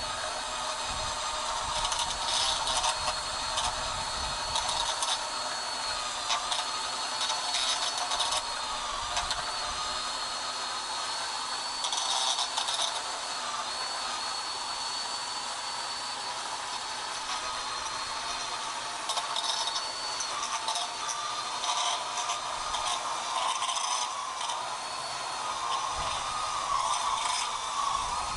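Ryobi 40V cordless power head with its cutting attachment running steadily with a high whine, with gritty scraping and clatter as it cuts along concrete edges.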